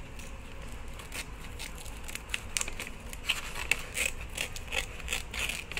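Scissors cutting through the top of a shiny plastic resealable snack pouch: a run of short, irregular snips, with the packaging crinkling as it is held.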